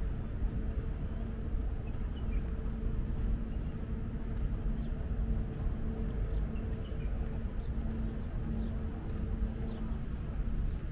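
Outdoor ambience: a steady low rumble with a constant hum running through it, and a few faint bird chirps.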